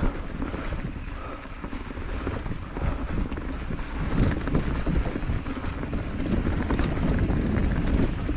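Mountain bike descending a dirt trail: wind buffeting the microphone over the rumble of the tyres and a constant clatter of the bike rattling over the ground, with a sharper clack about four seconds in.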